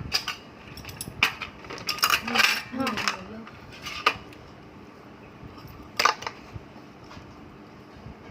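Utensils and shells clinking against a dish during a meal: a handful of separate sharp clicks spread over several seconds, with a short murmur of voice about two seconds in.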